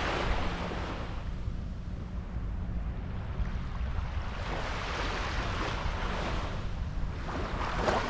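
Small, gentle waves washing up on a sandy beach: a soft hiss of surf that swells and fades two or three times, with a steady low wind rumble on the microphone.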